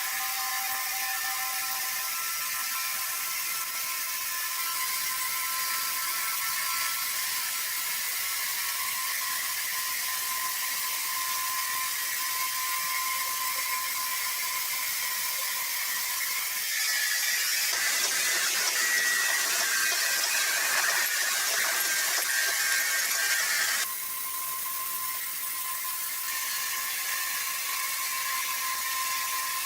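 Sawmill machinery running with a steady high-pitched whine. About seventeen seconds in, a louder hissing noise comes in on top of it and stops abruptly about seven seconds later.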